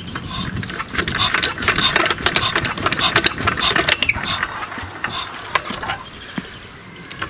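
Old petrol stationary engine being turned over by its hand starting handle: a rapid clatter of mechanical clicks for about five seconds, then it stops. It does not fire; the magneto switch is still off, so there is no spark.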